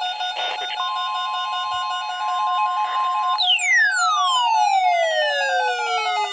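NOAA Weather Radio warning alarm test: a steady 1050 Hz alert tone sounds for about two and a half seconds over a warbling tone that flips quickly between two close pitches. About halfway through, a loud tone slides steadily down from a high whistle to a low hum.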